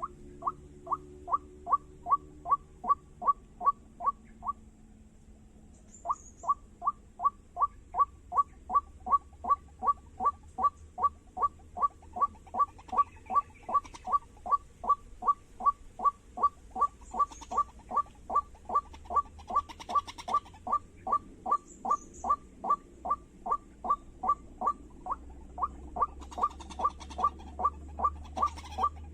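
White-breasted waterhen call, a fast, even string of short notes at about three a second. It breaks off briefly about four seconds in, then carries on without let-up.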